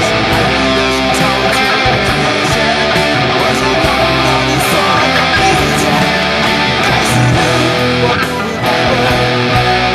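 Guitar music: strummed and plucked guitar over a bass line, playing steadily.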